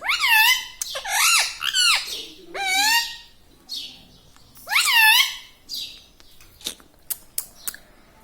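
An Indian ringneck parrot calling: about five loud squawks in the first five seconds, each rising then falling in pitch.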